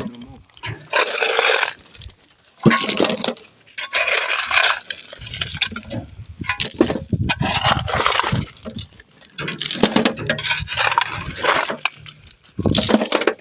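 Shovels scooping ballast (crushed stone) and tipping it into a wheelbarrow: a run of gritty scrapes and rattling stone, one stroke about every one and a half to two seconds.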